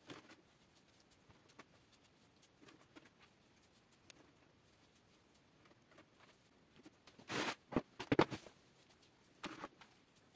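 Hands pressing and spreading damp coconut coir in a plastic tub, soft patting and rustling. Louder scrapes and knocks come about seven to eight and a half seconds in, and once more near the end, as the plastic tubs are shifted.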